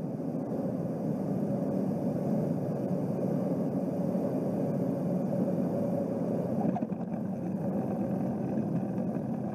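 Small plane's engine and propeller droning steadily, heard inside the cabin.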